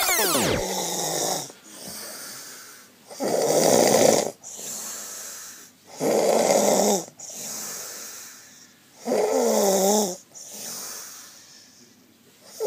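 Someone snoring in a slow, regular rhythm: a loud rasping snore about every three seconds, with quieter breaths between, the later snores taking on a wavering, whining pitch. A music track with sliding tones cuts off just after the start.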